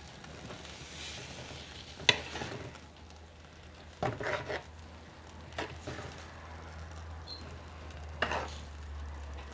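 A metal spoon stirring shredded beef in chile sauce in a clay cazuela, scraping and knocking against the pot now and then, the sharpest knock about two seconds in. Under it the stew sizzles faintly as it cooks.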